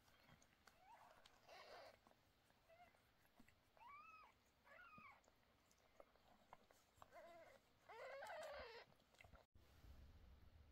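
Newborn kittens mewing: about half a dozen short, thin cries that rise and fall, with a longer, louder one near the end.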